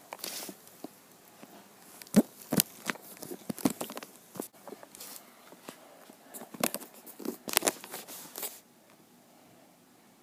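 Cloth rustling and scattered knocks from a phone being handled under a blanket, the rubbing close to the microphone. It goes quieter for the last second or so.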